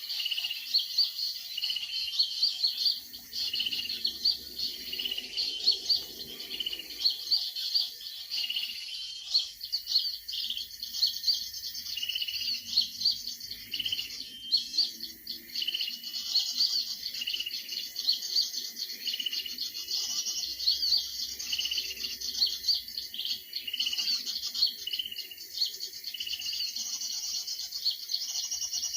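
Small birds calling: a continuous, rapid series of high chirps, with a lower note repeating about once a second.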